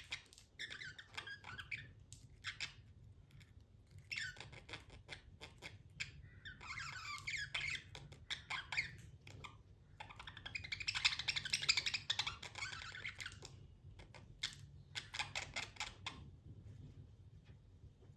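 Budgerigar chirping and chattering in bursts of rapid, scratchy notes with short pauses between them. The longest, loudest run comes a little past the middle, and the chatter dies away near the end.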